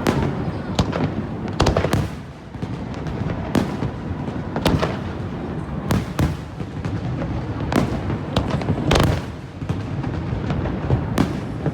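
Aerial fireworks bursting: about a dozen sharp bangs at irregular intervals, over a continuous crackling haze.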